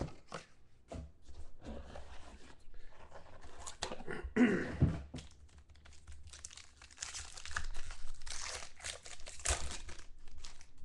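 Foil wrapper of a trading-card pack being torn open and crinkled by hand, in irregular crackling bursts that grow denser in the second half.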